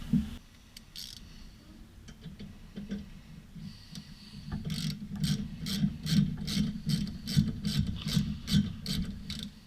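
Ratchet wrench clicking in quick, even strokes, about three clicks a second, through the second half, after a few scattered metal clicks and rubbing earlier on.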